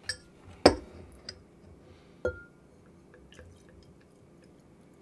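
Glass and bottle knocking on a table as they are picked up, four sharp knocks with the loudest about a second in and a short glassy ring on the last; then India pale lager being poured quietly from the bottle into a tilted glass, with faint small ticks.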